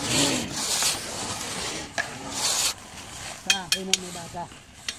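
Rasping strokes, several in the first half, followed by a few sharp clicks and short squeaks a little past halfway.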